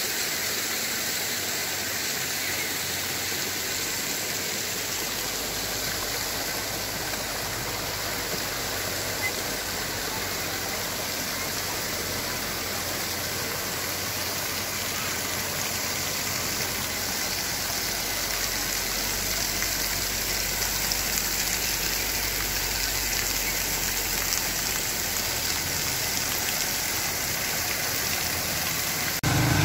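Small waterfall splashing down a rock face onto stones: a steady rush of falling water. Just before the end it cuts to a louder engine running.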